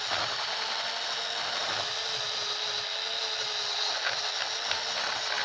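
Small electric motor of a facial-cleansing brush converted into a mini sander, running steadily with its spinning head sanding a wooden block: a steady motor whine over a scratchy sanding hiss.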